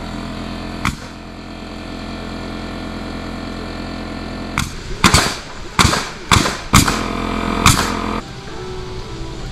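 Sharp bangs of nails being driven into the wooden barn frame: one about a second in, then six in quick succession in the second half. A steady hum runs underneath and cuts off near the end.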